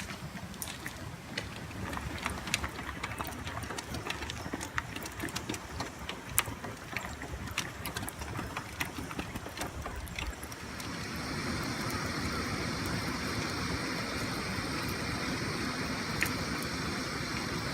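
Campfire crackling with frequent sharp pops over a low rumble. About eleven seconds in, a steady hiss joins and runs on.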